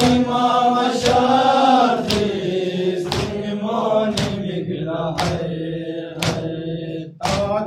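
Men's voices chanting a Balti noha, a Shia mourning lament, with sharp chest-beating slaps (matam) keeping time about once a second.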